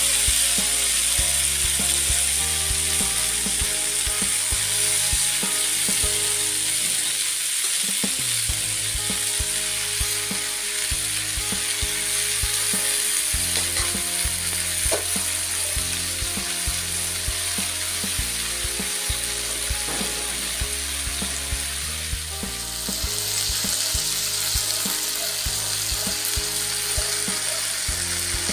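Food sizzling steadily on a very hot pan: the stir-fried crispy catfish dish hissing in hot oil and sauce. Background music with a steady beat plays under it.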